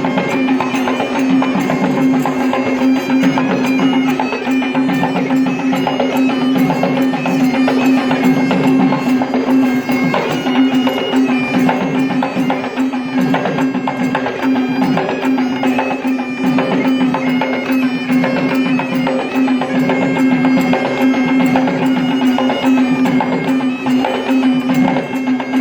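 Traditional music: a piercing reed pipe playing a melody over a steady held drone, with drumming.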